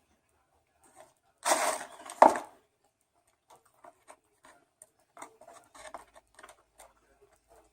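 A person eating close to the microphone. A burst of rustling packaging lasts about a second, then scattered small chewing and mouth clicks follow.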